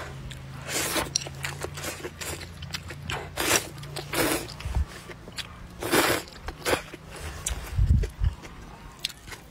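Noodles being slurped in about five short sucking pulls, with chewing and small wet mouth clicks between them. A low thump near the end.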